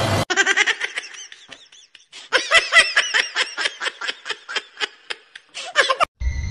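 A person laughing hard in quick repeated bursts, about five a second, with a short pause before a second, louder run. Near the end it cuts to a steady high tone over a low rumble.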